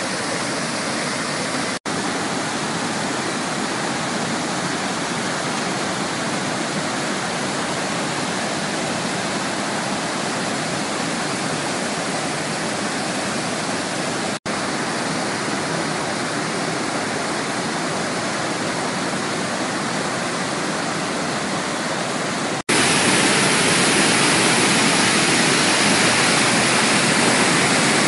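Iguaçu Falls' cascades and rapids, a steady heavy rushing of falling water. It is broken by three momentary gaps and is louder for the last five seconds or so.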